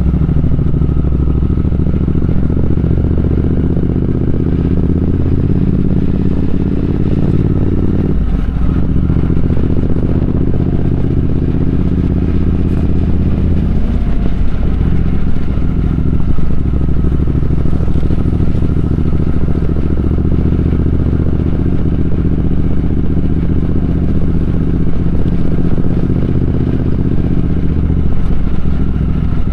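Triumph Speed Twin 1200's parallel-twin engine running under way, its note rising and falling with the throttle, with breaks in the note about 8 and 14 seconds in.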